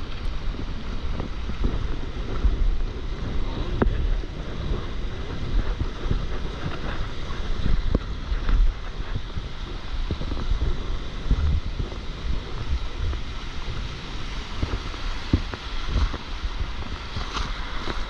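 Small surf waves breaking and washing through shallow water, under a heavy, gusting low rumble of wind on the microphone.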